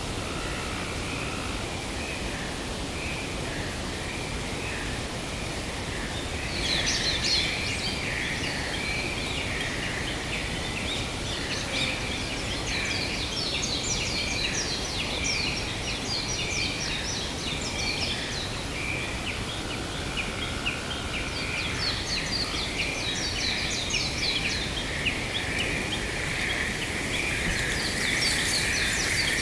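Forest ambience: a steady rushing wash of noise under a high pulsing chorus, with birds chirping in quick, dense bursts from about six seconds in.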